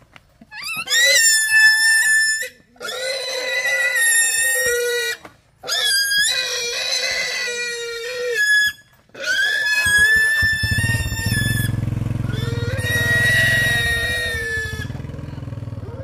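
Caged pig squealing in a series of long, high cries, one after another with short breaths between, the last one several seconds long. From about ten seconds in, a motorbike engine runs steadily underneath.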